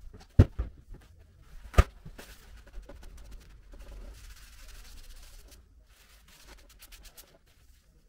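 Hands working vinyl skin onto a PC case: two sharp knocks, the first about half a second in and the second near two seconds, then a few seconds of soft rubbing and crinkling, and a few light ticks near the end.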